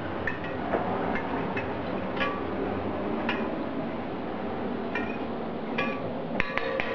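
A spoon stirring in a stainless steel saucepan, clinking against the side of the pan now and then, with a quick run of clinks near the end.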